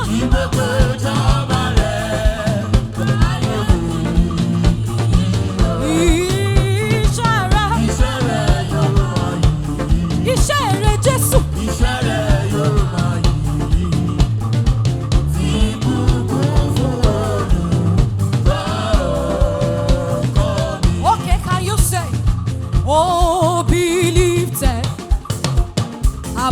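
Live worship music: a band with drum kit and bass playing a steady beat, with instruments and voices carrying the melody.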